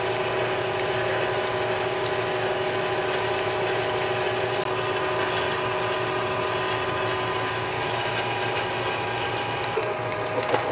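Manual metal lathe running in low gear with a steady gear whine, while an indexable-insert spade drill is fed by the tailstock handwheel and cuts a deep hole into solid bar stock under flood coolant.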